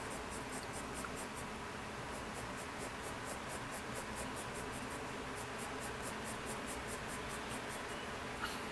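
Coloured pencil shading on sketchbook paper: quick back-and-forth scratching strokes, about five a second, pausing briefly now and then. A single small tap sounds near the end.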